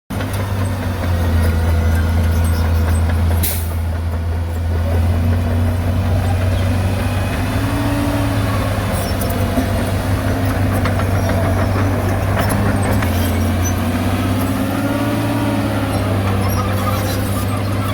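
Bulldozer's diesel engine running steadily while pushing soil, its pitch rising and falling gently as the load changes. A brief hiss comes about three and a half seconds in.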